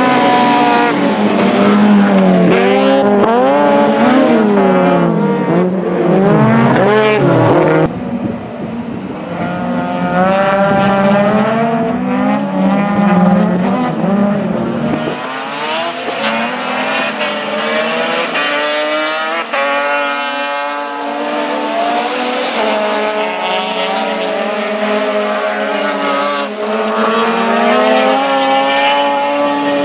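Rallycross race cars on track, their engines revving hard and the pitch repeatedly climbing and dropping. The sound changes abruptly about 8 and 15 seconds in as it cuts between different cars.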